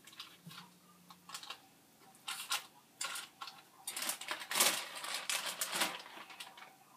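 Plastic bag rustling and crinkling as marinated chicken wings are pulled out and set into an air fryer basket, with scattered light taps and clicks. The rustling is loudest from about four to six seconds in.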